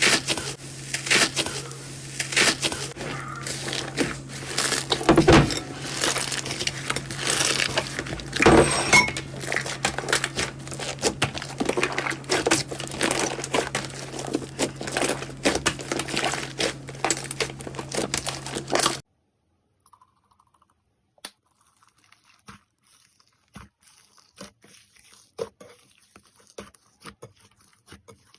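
Slime being squeezed and pressed by hand, making a dense run of crackles and pops over a steady low hum. About nineteen seconds in it cuts abruptly to a much quieter stretch of sparse, soft clicks and squelches.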